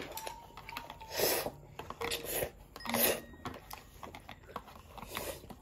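A child slurping broth from the rim of a cup-ramen bowl, three slurps about two seconds apart.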